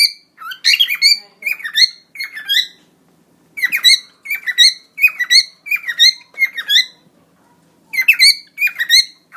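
Cockatiel singing: three phrases of quick, high, chirpy whistled notes repeated several times a second, each phrase followed by a short pause.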